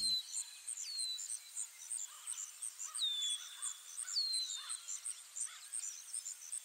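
Outdoor birdsong: short falling whistled calls every second or two, over a steady high chirping repeated about four times a second. Background music cuts off right at the start.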